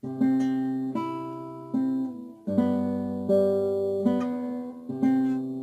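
Classical guitar played fingerstyle: a slow piece of plucked bass notes and chords, struck about every three-quarters of a second and left to ring and fade.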